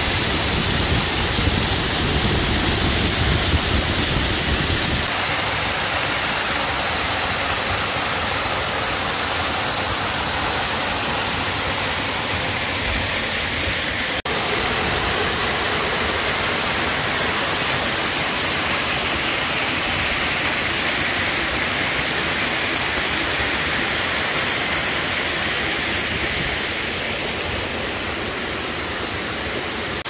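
Waterfall pouring onto rocks: a loud, steady rush of falling and splashing water, with a deeper rumble for the first five seconds and a slightly softer sound near the end.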